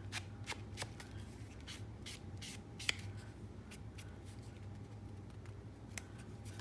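Ink pad being dabbed and rubbed along the edges of a paper envelope: light, irregular taps and rubs with paper rustling, and one sharper tap about three seconds in, over a faint steady low hum.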